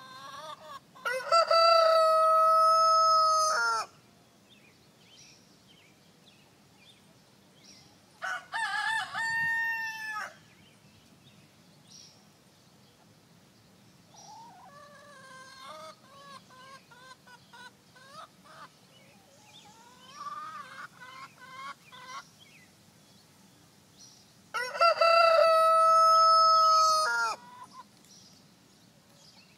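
Rhode Island Red rooster crowing loudly twice, each crow about three seconds long, with a shorter crow-like call in between and softer clucking calls in the middle stretch.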